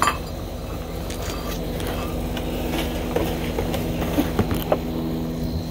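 Heavy fabric grill cover rustling as it is pulled down over a pellet grill, with a few short sharp clicks and knocks about three to five seconds in, over a steady low hum.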